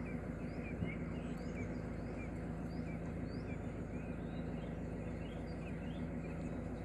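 Narrowboat's engine running steadily at cruising speed, a low even hum, with small birds chirping repeatedly from the canal-side hedges over it.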